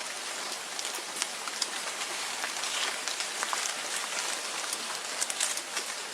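Steady pattering hiss of water falling on a surface, with many small scattered ticks.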